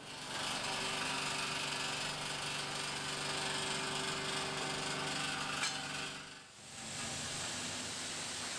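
A steady machine hum with a hiss over it, then a short dip about six and a half seconds in. After that comes the even, steady hiss of a car-wash pressure-washer lance spraying water onto a car.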